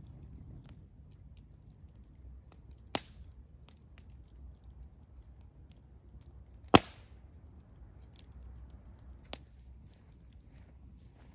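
Wood campfire crackling, with scattered small ticks and a few sharp pops: one about three seconds in, the loudest nearly seven seconds in, and a smaller one later.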